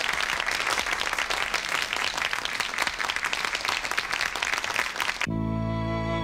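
Audience applauding, a dense patter of many hands clapping. About five seconds in it cuts off suddenly and slow, sustained music comes in.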